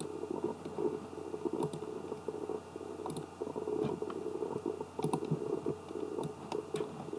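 Scattered computer mouse clicks, a handful spread over several seconds, over a steady low hum.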